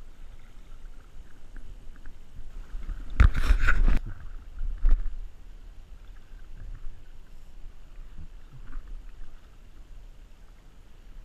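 Quiet water and wind noise around a small boat. About three seconds in comes a loud splashing burst lasting under a second, then a single sharp knock.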